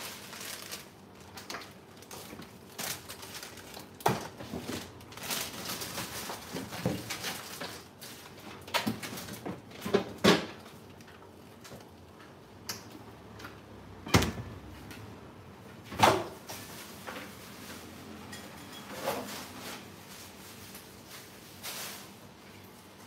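Scattered knocks and clatter of people moving about a small room, a few sharp clunks standing out, the loudest about 10, 14 and 16 seconds in.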